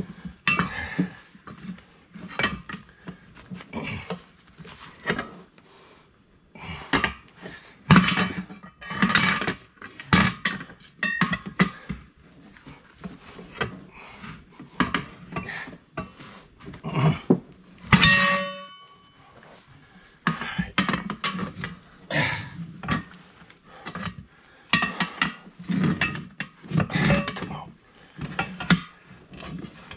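Steel tire irons clanking and scraping against a steel tractor wheel rim and the bar of a manual tire-mounting stand, in irregular bouts, as the bead of a new tire is levered over the rim. One strike a little past halfway rings on briefly.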